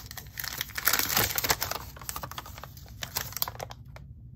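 Paper invoice being handled: a quick run of rustles and small crisp clicks, densest about a second in, then sparser, stopping shortly before the end.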